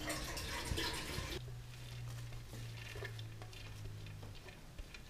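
Wooden spoon stirring thick chicken curry in an aluminium pot, the sauce sloshing for about the first second and a half. Then a steady low hum with a few faint light clicks.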